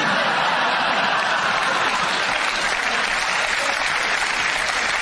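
Studio audience applauding, a dense, even clatter of clapping that holds at a steady level.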